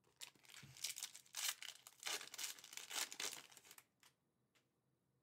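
Shiny foil wrapper of a trading-card pack crinkling and tearing as the pack is ripped open. The crackling stops about four seconds in, followed by a couple of faint clicks.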